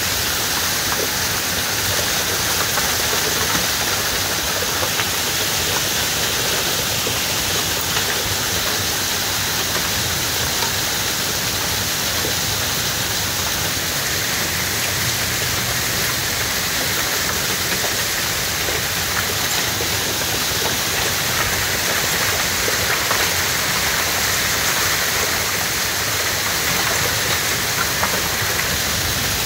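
Heavy rain driven by strong straight-line storm winds, a steady rushing hiss of downpour lashing the roof, yard and trees.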